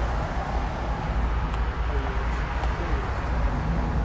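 A car passing close by on the road, over a steady low rumble.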